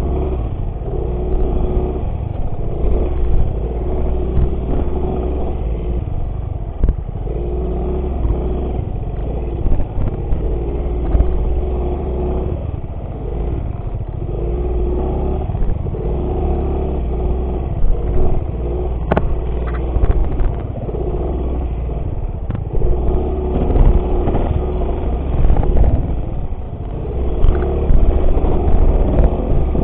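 Motorcycle engine running under way on a dirt track, its pitch coming and going, over a heavy low rumble, with a few brief knocks and clatters.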